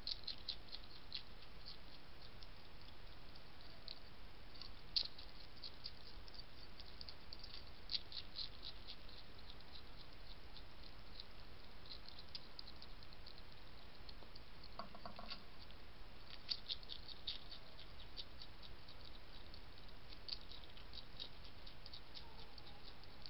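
A European hedgehog crunching dry food pellets from a dish: irregular crisp clicks of chewing, coming in quick clusters of several a second.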